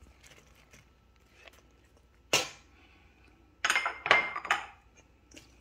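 Spatula and plastic cutting board knocking and scraping against a stainless steel bowl as chopped onion is tipped in: one sharp knock a little over two seconds in, then a quick run of knocks and scrapes about a second later.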